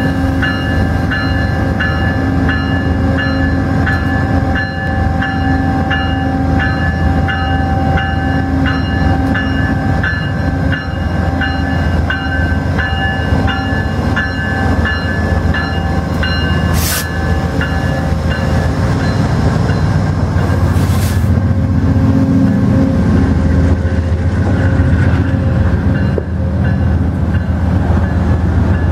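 GE P42DC diesel locomotive pulling a passenger train out of a station, its engine running under load, then the coaches rolling past. For the first half there is a steady high whine with a regular light ticking, and about two-thirds through there are two short hisses.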